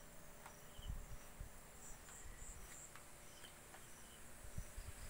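Crickets chirping faintly: short high-pitched chirps repeating in small clusters. A few soft low thumps about a second in and again near the end.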